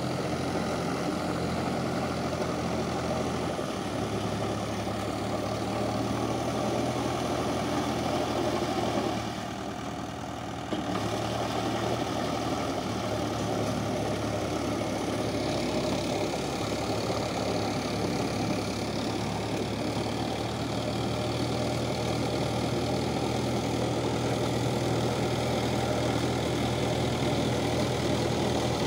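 Swaraj 855 FE tractor's three-cylinder diesel engine running steadily under load while it drives a rotavator through a flooded paddy field. The engine sound dips briefly about ten seconds in, then picks up again.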